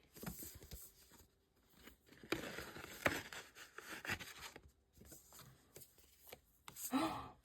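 Paper and plastic album inclusions being handled, with faint rustling, scraping and a few light clicks, busiest in the middle of the stretch.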